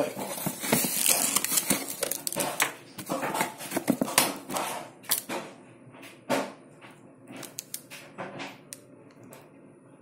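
Plastic film wrapper of a dishwasher tablet crinkling and crackling as it is handled in the fingers, in irregular clicks that are busiest in the first half and thin out after about six seconds.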